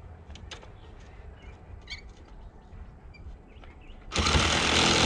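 Scattered bird chirps over a low hum, then about four seconds in a loud power tool starts abruptly and runs steadily.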